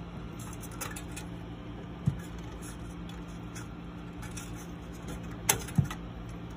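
Sharp clicks and knocks of a metal fan clip and the plastic fan frame against the fins of a Thermalright True Spirit 90M tower CPU cooler as the fan is hooked on by hand: about four clicks, the loudest about two seconds in and a pair near the end, over a steady low hum.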